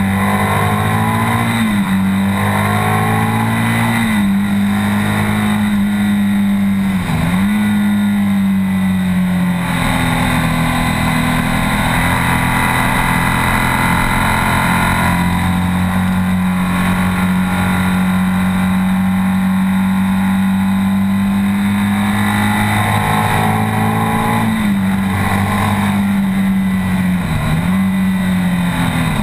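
BMW R 1200 S's 1170 cc air/oil-cooled boxer twin running hard at steady high revs, heard from on board the bike. The engine note holds steady for long stretches and dips briefly a few times, about a second and a half in, about four seconds in, about seven seconds in, and again several times near the end.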